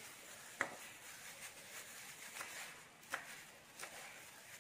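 Kitchen knife chopping Vietnamese coriander on a wooden cutting board: about five faint, sharp taps of the blade against the board, spaced unevenly a second or less apart.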